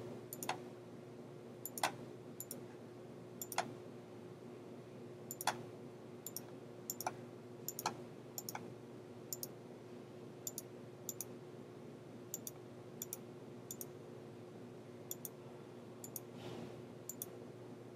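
Computer mouse button clicking, about two dozen sharp clicks at uneven intervals, each one placing a point of a lasso (free-select) outline around an image. A faint steady hum runs underneath.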